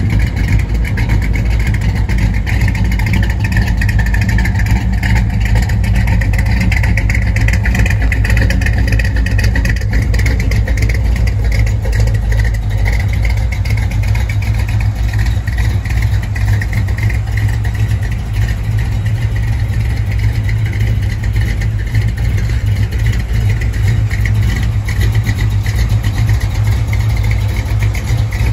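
A 1955 Chevrolet's engine idling steadily, a constant low hum.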